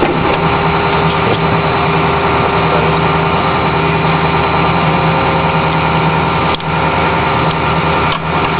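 An engine running steadily at an even speed, with two brief dips in level near the end.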